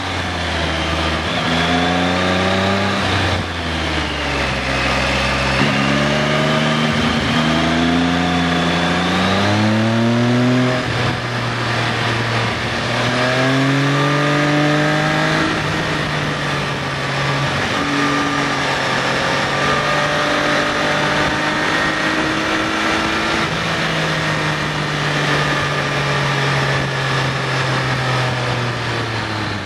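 Triumph Sprint ST 955i's three-cylinder engine revving up through the gears, its pitch climbing and then dropping at each upshift every couple of seconds, then running steadier and falling off for a long stretch near the end as the bike slows, with wind rushing past.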